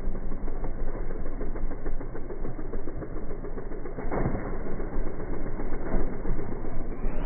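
Honda CRF110 pit bike's single-cylinder four-stroke engine running under throttle as the bike rides a dirt track toward and past, with short surges about four and six seconds in.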